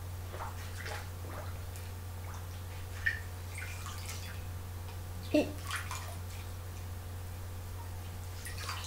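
Water splashing and dripping as a cloth is rinsed in water, in short irregular bursts, the strongest about three and five seconds in. A steady low electrical hum lies underneath.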